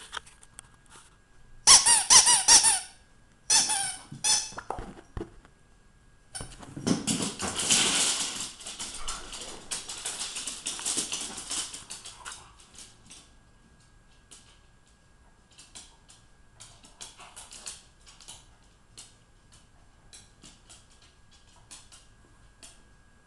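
Squeaky dog toy squeezed in quick, high squeaks about two and four seconds in. Several seconds of rough noise follow, then scattered light clicks.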